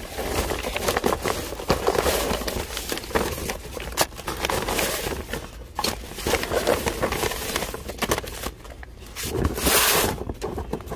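A nonwoven shopping bag rustling and crinkling as it is handled close by, with scattered knocks and clicks of items being moved. A louder rustle comes about ten seconds in.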